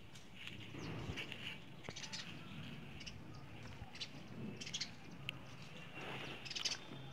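Birds chirping now and then over quiet outdoor background, with soft handling sounds from hands peeling the charred skin off a roasted tomato.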